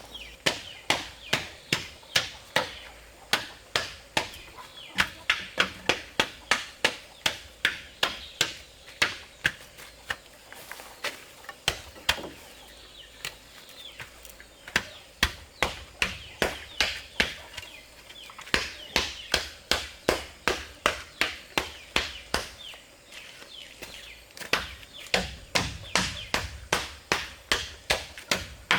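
A tool striking over and over, sharp blows about two a second, with two short pauses.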